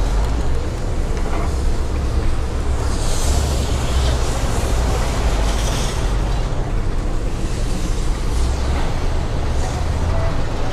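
Vehicle engine idling with a steady low rumble, with a hiss rising from about three to six seconds in.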